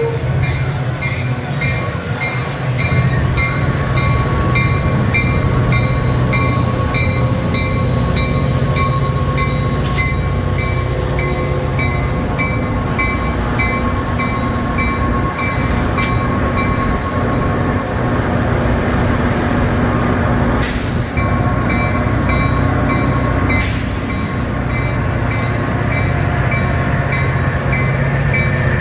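A train rolling past with a steady loud rumble of wheels on rail. Through it runs a regular high ringing about three times a second, and there are two short bursts of noise late on.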